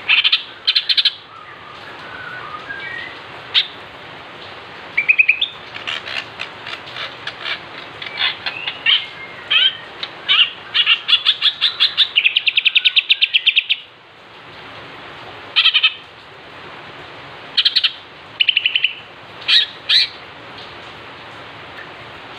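Green leafbird (cucak ijo) singing loud chirps and short whistled phrases, with a fast rattling run of repeated notes for a few seconds about halfway through.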